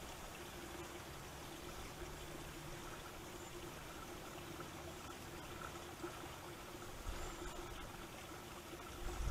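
Steady hiss of wind and trickling water, with low gusts of wind buffeting the microphone from about seven seconds in.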